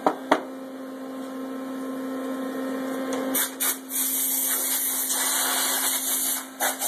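Two sharp clicks and a steady electrical hum, then a loud hissing spray that starts about three seconds in and runs on with a few short breaks.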